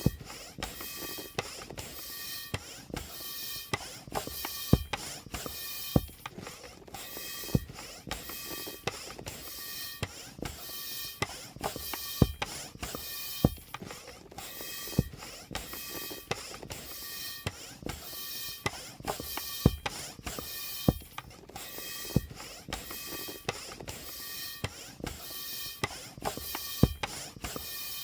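Balloon being inflated in an even pumping rhythm, about three strokes every two seconds. Each stroke has a sharp click and a short, high squeaky tone.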